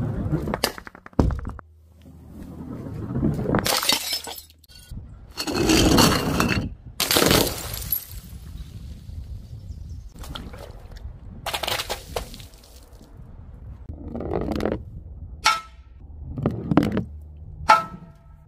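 A string of separate smashes of glass and objects breaking on impact against paving, some followed by tinkling shards. A heavy ball rolls down a wooden plank with a low rumble about a second in, before the first smash.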